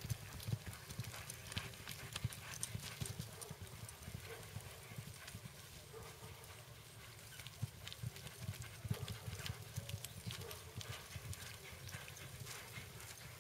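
Hoofbeats of a horse galloping on a soft dirt arena while running a pole-bending pattern: a running rhythm of dull thuds, fainter around the middle as the horse runs farther off.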